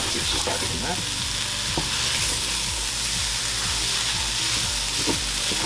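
Rice frying in oil with onion and spices, sizzling steadily while a spoon stirs it, scraping the bottom of the pan now and then.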